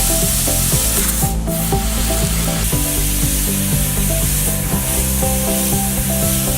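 Fiber laser cutting machine fly cutting: a steady hiss, with the drive motors whining in short pitch sweeps up and down as the cutting head darts rapidly from cut to cut.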